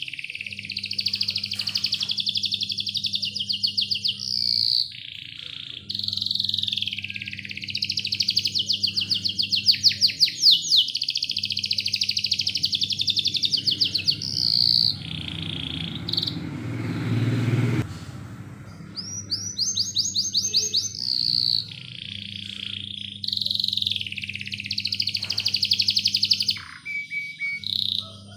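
Domestic canary singing long phrases of fast trills and rolls, broken by short pauses, over a steady low hum. About halfway through, a low rushing noise swells for a couple of seconds.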